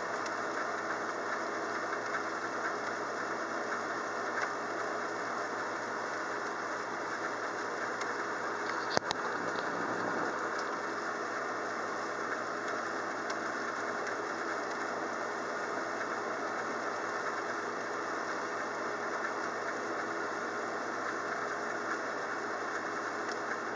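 Steady rain from a thunderstorm, an even hiss with no let-up. About nine seconds in there is a single sharp crack, followed by a short low rumble.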